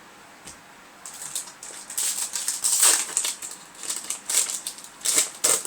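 Foil Yu-Gi-Oh! booster pack wrapper crinkling and being torn open by hand, in a series of irregular crackles that grow louder after the first second.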